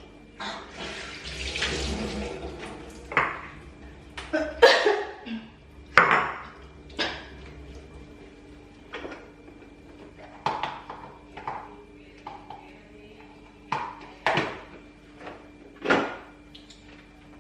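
Tap water running briefly at a kitchen sink, then a string of sharp clinks and knocks of bowls and utensils being handled, as chillies are washed.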